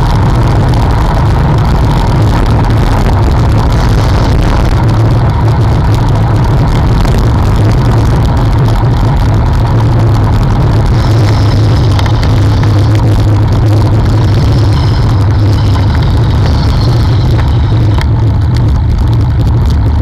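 Steady low wind rumble on a bicycle-mounted camera's microphone while riding, mixed with road and tyre noise from the moving bikes and nearby traffic.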